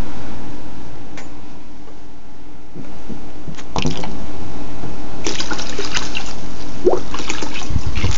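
Old reef-tank water running from a siphon hose into a plastic bucket during a water change, splashing as the bucket fills; louder from about four seconds in.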